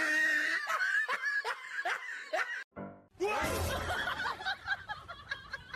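Laughter in two bouts, each a run of short pulses, with a brief pause between them.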